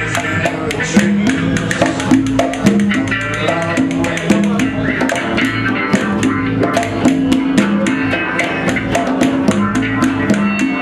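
Live blues-rock band playing an instrumental passage: guitar and bass riffing over congas and hand percussion that keep a fast, steady beat.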